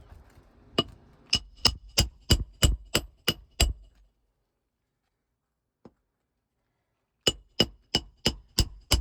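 Roofing hammer driving roofing nails into an asphalt shingle: two runs of quick, ringing blows, nine then six, with a pause of a few seconds between, finishing the nailing of a replacement 3-tab shingle.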